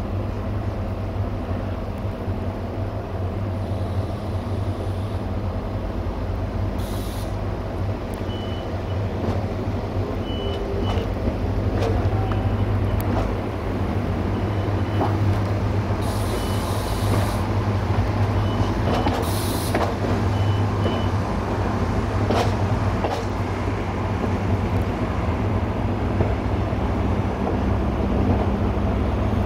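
ADH11 diesel railcar running, heard from on board: a steady low engine drone over wheel and track noise, growing a little louder about twelve seconds in. A short high beep repeats every half second or so through the middle, with a few brief hisses.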